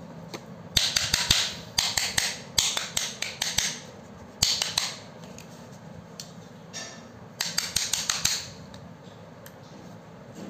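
Short bursts of quick clicks and rattles from the plastic motor housing of a disassembled angle grinder being handled, about five bursts spread over eight seconds.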